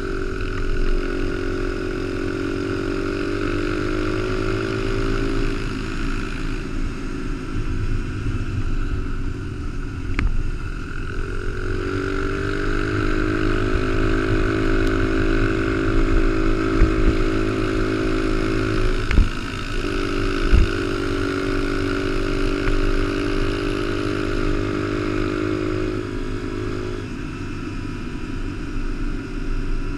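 Honda XR100 mini bike's small four-stroke single running under way, rising in pitch as it winds up, holding steady revs and easing off a few times, with low wind rumble on the microphone. Two sharp knocks stand out about two-thirds of the way through.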